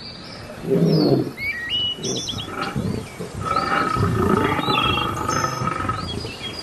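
Male African lions calling: a short deep call about a second in, then a longer, rougher call from about three and a half to six seconds. Birds chirp throughout with short rising notes.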